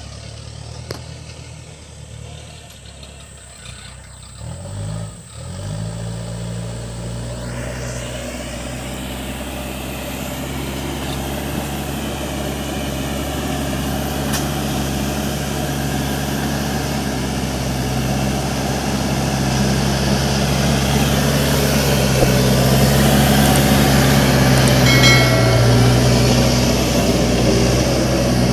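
Case 580 Super M backhoe loader's diesel engine picking up revs about five seconds in, then running steadily under load and growing gradually louder.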